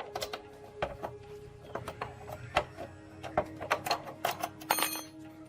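Irregular sharp clicks and knocks of hand tools handling metal motorcycle engine parts, several close together near the end, over faint steady background music.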